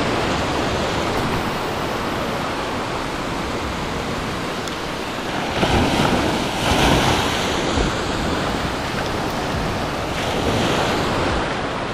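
Ocean surf breaking and washing up a sandy beach, with a louder wave breaking about six seconds in.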